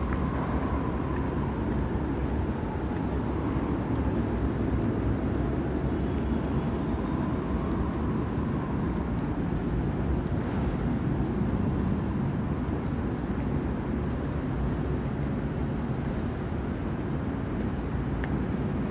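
Steady ambient rumble and hiss with no distinct events, the background noise of a large half-built stadium. Faint distant hums come and go.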